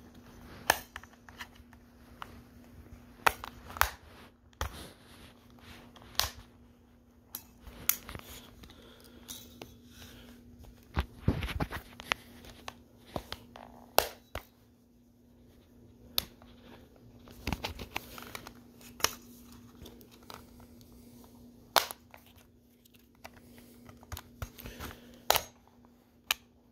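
Plastic snap clips along the edge of an Onkyo remote control's case popping loose as a plastic squeegee pries the shell apart: about twenty sharp clicks at irregular intervals, with plastic scraping and handling noise between them.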